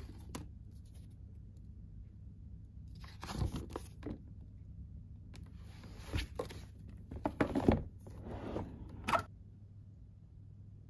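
Pages of a ring-bound paper menu being turned and handled: several short bursts of paper rustling and scraping, the loudest about seven and a half seconds in, over a steady low hum. The rustling stops a little after nine seconds.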